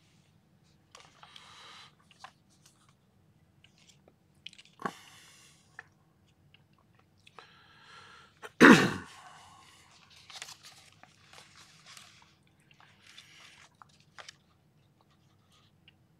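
Quiet mouth and breathing noises from a man close to a microphone. There is a small sharp burst about five seconds in and one loud, sudden throat burst a little under nine seconds in.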